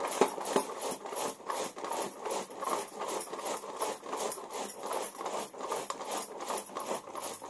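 Peeled bottle gourd being grated by hand on a metal grater in a steel plate: an even run of rasping strokes, about three a second.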